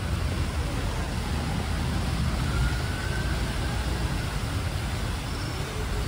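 Steady outdoor noise of a large fountain's spray splashing into its basin, mixed with a low hum of city traffic.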